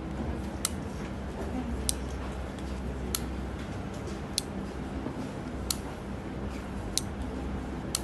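Sharp single clicks, seven of them, evenly spaced about a second and a quarter apart, over a steady low background hum.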